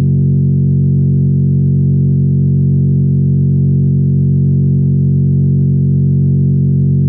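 A sustained G-flat drone tone: one steady, unchanging pitch with a stack of overtones, held without a break as a reference pitch for practising trombone natural harmonics.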